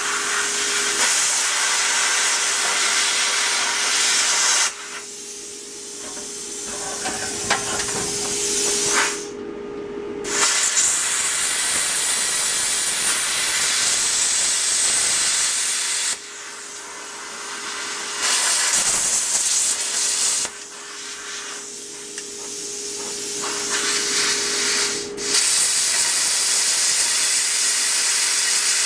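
Handheld air plasma cutter cutting through rusty steel: a loud, steady hiss of the compressed air and arc, which stops briefly twice as the arc goes out and is struck again.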